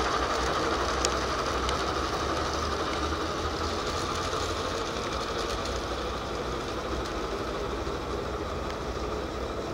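Outdoor model railway train running along its track: a steady mechanical running noise that slowly fades as the train draws away.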